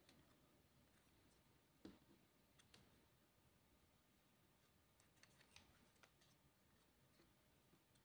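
Near silence, with a few faint clicks and rustles of hands handling paper stickers as a round sticker is peeled from its backing and pressed onto a paper plate.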